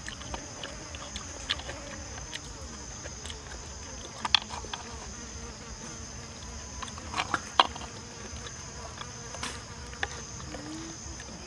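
Steady, high-pitched drone of insects, broken by a few sharp clicks and taps. The loudest clicks come about four seconds in and a cluster comes around seven and a half seconds in.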